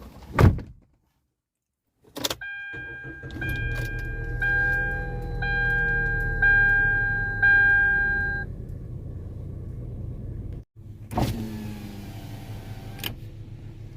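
Car sounds: a door thumps shut and the engine starts and runs with a low rumble. A dashboard warning chime dings about once a second for some six seconds, then stops. About eleven seconds in there is a short burst of louder noise.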